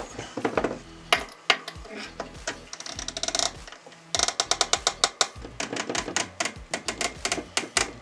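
Bicycle rear hub with a new 11–34 tooth cassette, its lockring being threaded on by hand and then tightened with a lockring tool and wrench. Scattered metal clicks at first, then a fast, even run of ratcheting clicks from about four seconds in.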